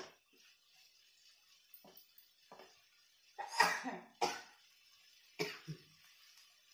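A person coughing in several short, sudden bouts, the loudest about three and a half seconds in.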